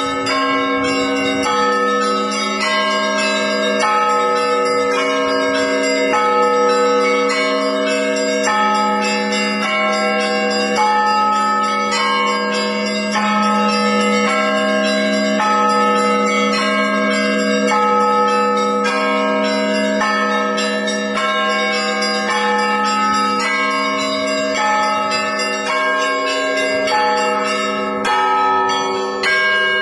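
Orthodox church bells ringing a continuous peal: several bells of different pitch struck in a steady quick rhythm, each ringing on over the next.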